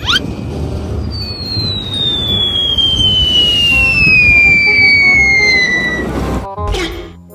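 Cartoon falling-bomb whistle sound effect: one long whistle dropping steadily in pitch for about five seconds over a crackling rumble, opened by a quick rising swish. A few sharp cracks follow near the end.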